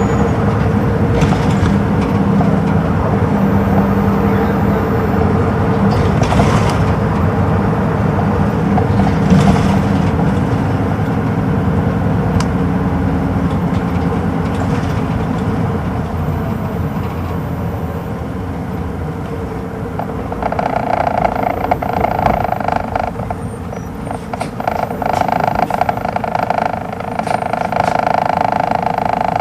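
Hino Rainbow II (PDG-KR234J2) bus's inline-six diesel engine and drivetrain heard inside the cabin, running steadily with a low hum under way. The hum eases off as the bus slows almost to a stop over the last several seconds. A higher tone comes and goes in that last part.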